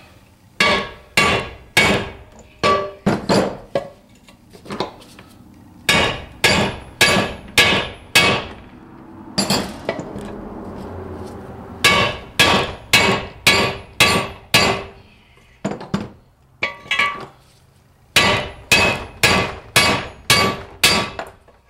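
Hammer striking a socket used as a drift to drive the front shaft seal and bearing out of an NP208 transfer case half. Sharp metallic blows with a short ring, about two a second, come in several runs with brief pauses between them.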